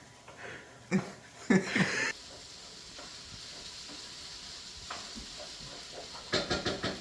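Food sizzling in a frying pan, a steady hiss lasting about four seconds. Short bursts of voice come about a second in and again near the end.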